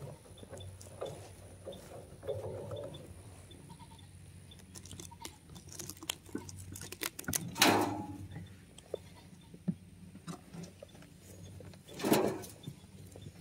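A wheelbarrow is pushed over grass, then a shovel digs into a truckload of compost, with two loud scrapes of the blade about halfway through and near the end.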